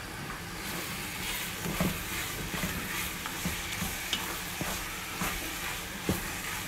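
Wooden spoon stirring a thick pot of eru, a leafy stew in palm oil, knocking and scraping against the metal pot about twice a second over a steady hiss.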